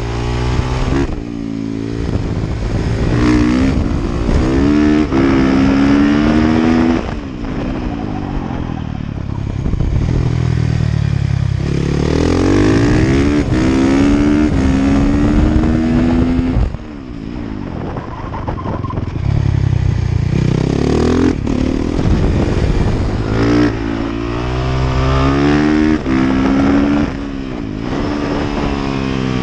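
Honda CRF450R supermoto's single-cylinder four-stroke engine under hard riding, pitch climbing through the gears, then dropping as the throttle comes off for corners, several times over.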